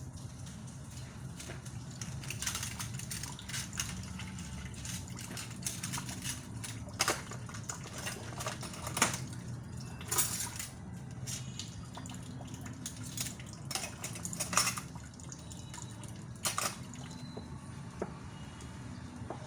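Water splashing and dripping at a sink, with dishes knocking and clinking now and then as they are rinsed and handled.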